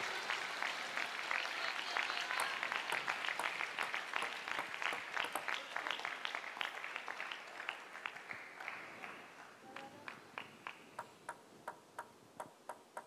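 Arena crowd applauding a point, the clapping fading away over about nine seconds. Then a table tennis ball is bounced steadily, light ticks about three a second, as the server gets ready.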